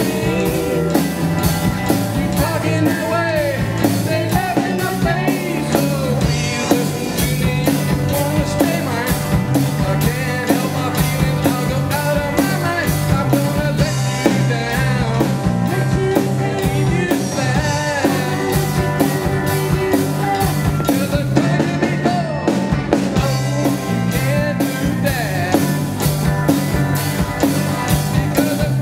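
A live rock band playing: electric guitar, electric bass and a drum kit keeping a steady beat, with a lead voice singing over it.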